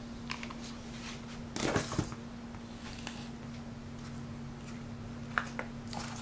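Hands working a paper bag and ribbon while gluing the ribbon on: a brief paper rustle about two seconds in and a few faint ticks, over a steady low hum.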